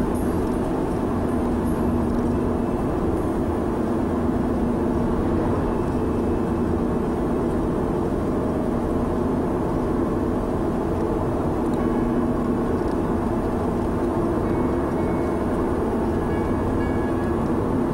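Steady engine and tyre noise of a car driving at a constant speed, heard from inside the cabin as a continuous low hum.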